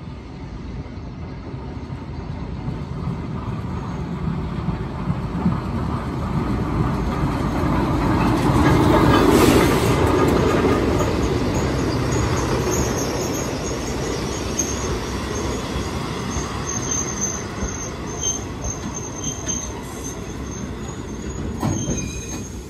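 Tsugaru Railway stove train pulling into the station behind its diesel locomotive. The rumble builds to its loudest as the locomotive passes close by, about nine to ten seconds in, then the coaches roll slowly past with a high, on-and-off wheel and brake squeal as the train slows to a stop. There is a single knock near the end.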